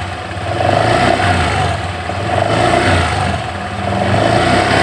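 Honda Scoopy scooter engine revved in repeated throttle blips, rising and falling about three times, with a rough growling 'ngorok' noise coming in with the revs. The mechanic traces the noise to a plastic cover by the CVT, which he thinks is bouncing the sound back.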